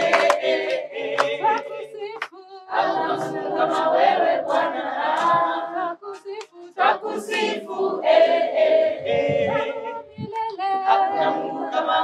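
Group of children and adults singing a worship song together without instruments, in phrases with short breaks every few seconds, with scattered hand claps.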